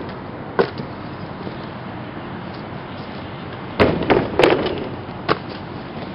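Several sharp thuds and pops over a steady outdoor hiss: a single one about half a second in, a quick cluster of four or five around four seconds in, and a last one about a second later.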